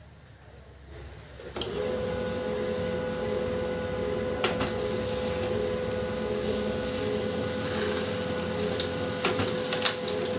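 Canon LBP2900 laser printer starting up about a second and a half in and running steadily as it prints a page, a constant hum with a few sharp clicks. The printer's gear noise fault has just been repaired.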